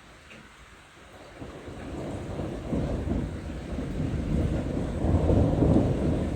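Thunder rumbling: it starts about a second in, builds and rolls, and is loudest near the end, with no sharp crack.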